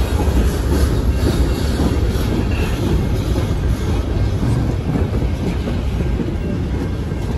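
Freight train gondola cars rolling past, a steady loud low rumble with scattered clicks of the wheels over the rails.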